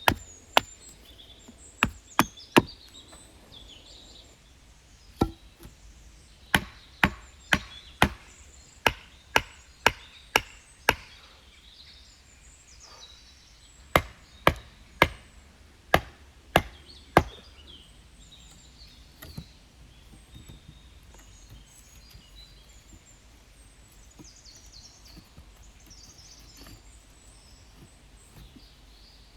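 An axe chopping wood with sharp strikes in runs of about two a second. There is a longer pause about twelve seconds in, and the strikes stop about two-thirds of the way through.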